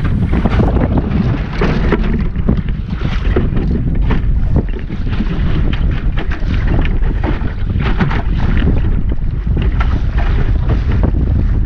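Strong wind buffeting the microphone of a camera mounted on a small sailing dinghy under way, with water rushing and splashing against the hull in many short splashes.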